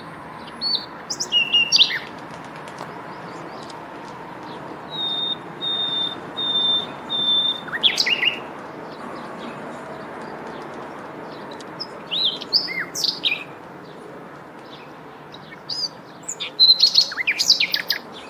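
Songbirds singing in short chirping phrases, with a run of four even, steady whistled notes in the middle, over a constant outdoor hiss.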